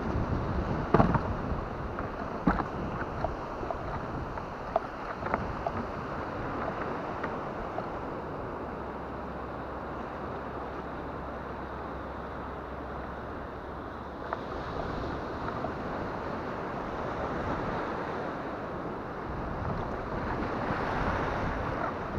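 Wind buffeting the camera microphone over water washing around a fishing kayak, with a few sharp knocks near the start. Breaking surf grows louder near the end.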